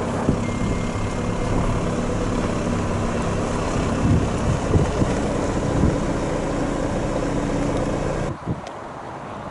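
Diesel engine of a Scania new-generation tractor unit with a refrigerated trailer running at low revs as the truck pulls slowly forward, a steady engine note with some wind noise. The sound drops away suddenly near the end.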